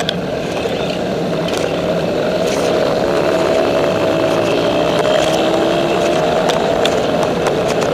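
Road noise while cycling along a city street among motor traffic: a steady rushing rumble with a wavering engine-like hum that swells through the middle.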